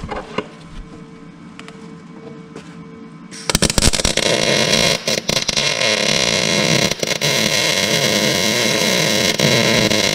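A faint steady hum with light clicks, then about three and a half seconds in a loud, rattling machine noise full of knocks starts suddenly.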